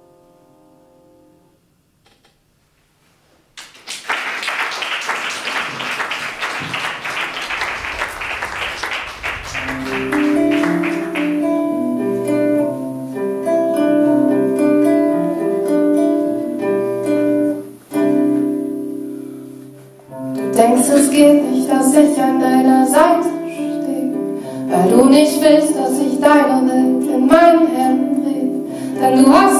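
Near silence, then audience applause for several seconds. A nylon-string classical guitar then picks a steady pattern of notes, and a woman's singing voice joins it about two-thirds of the way through.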